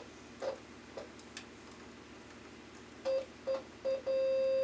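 A mid-pitched test tone passing through a Boss DD-5 delay pedal cuts in briefly three times, then holds steady near the end. This is the signal coming back through an intermittent ribbon-cable connection. A few faint clicks come before it.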